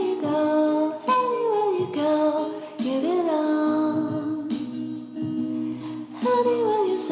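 Music: a song with a singing voice carrying a gliding melody in short phrases.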